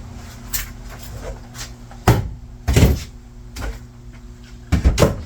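Cabinet drawer being worked on its drawer slides while they are realigned to close a gap: sliding and a series of sharp knocks and clicks, about seven, the loudest about two, three and five seconds in.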